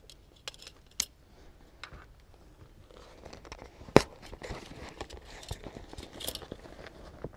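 Handling noises from building a makeshift shade cover: a few light clicks, a sharp knock about four seconds in, then several seconds of crinkling and rustling.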